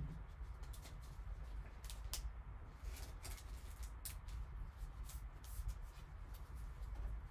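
Faint, scattered light ticks and rustles from trading cards and clear plastic card holders handled in gloved hands, over a low steady hum.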